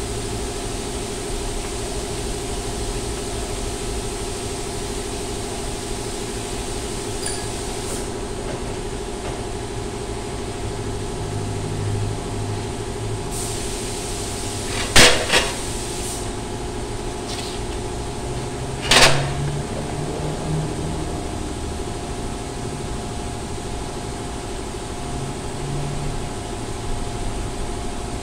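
Steady mechanical hum with several fixed tones, broken by two sharp metallic knocks about four seconds apart around the middle, the first the louder.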